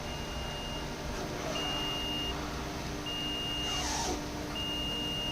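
An electronic beeper sounding one steady high tone, about three-quarters of a second on and three-quarters off, four beeps in all, over a steady machine hum. A short falling whoosh comes about four seconds in.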